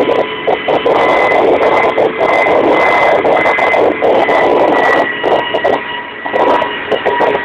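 Kamov Ka-26 helicopter in flight, heard from inside the cockpit: the loud, steady drone of its twin radial piston engines and coaxial rotors, with a constant thin whine above it.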